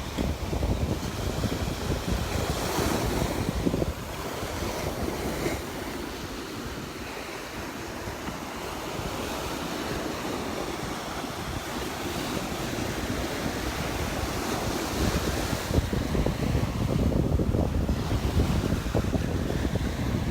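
Ocean surf washing onto the beach, with wind buffeting the microphone as a low rumble. The wind rumble is strongest in the first few seconds and again in the last few seconds.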